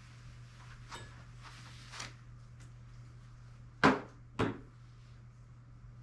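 Two sharp knocks about half a second apart, roughly four seconds in, after a couple of faint clicks, over a low steady hum.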